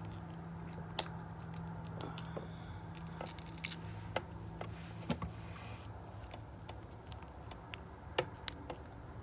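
Fingers and long acrylic nails peeling and cracking a shellfish shell: scattered small clicks and cracks, the sharpest about a second in, over a low steady hum.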